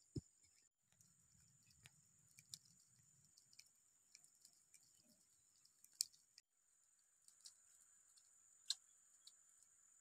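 Near silence, with a faint steady high hiss and sparse faint clicks. A single thump of a pestle in a bowl comes right at the start.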